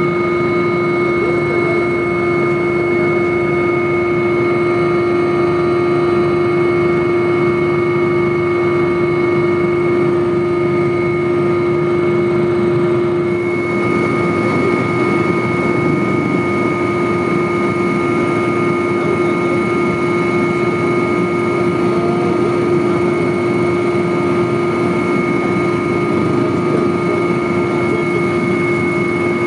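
Steady drone of an aircraft in flight, heard from inside its cabin, with several constant whining tones over the engine and air noise.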